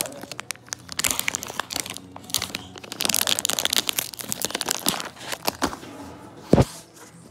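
Shiny plastic wrapper of a collector keyring packet crinkling and tearing as it is opened by hand, in dense crackling handfuls. A single thump near the end.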